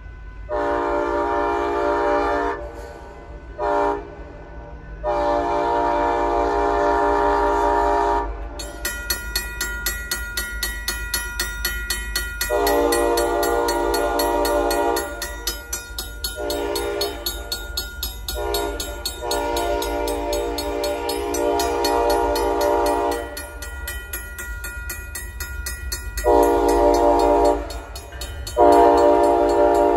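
Union Pacific freight locomotive's air horn sounding a series of long blasts with one short one, the grade-crossing warning as it approaches. About eight seconds in, the crossing signal's Safetran mechanical bell starts ringing with fast, even strokes and keeps on between the blasts.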